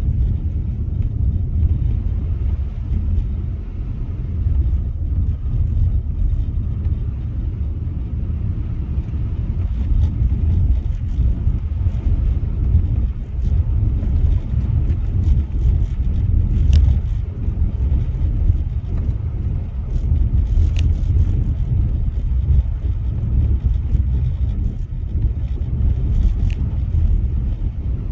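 Car driving on a snow-covered road, a steady low rumble of tyre, road and engine noise with a few faint ticks.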